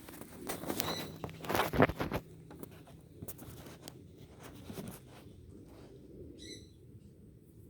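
Rustling and knocking handling noise for about two seconds, then a faint background with one short, high bird chirp about six and a half seconds in.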